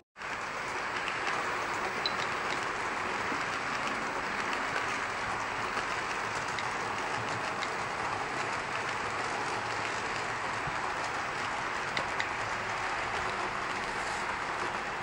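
HO scale model diesel locomotive running slowly along the track: a steady whirring rush of its motor and wheels on the rails, with a couple of faint clicks.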